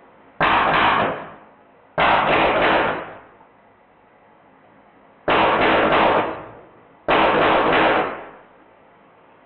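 Drozd Blackbird BB gun running on a high-pressure air tank, firing four short full-auto bursts of a few rapid shots each.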